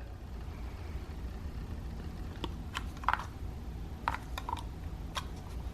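A handful of light, irregular plastic clicks and taps as the retaining tabs of a power window switch unit are pried and flexed to release it from its trim panel.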